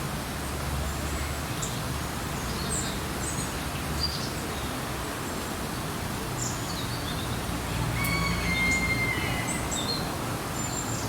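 Small birds chirping in short, high calls scattered throughout, with one longer held whistle-like note about eight seconds in, over a steady outdoor background hum.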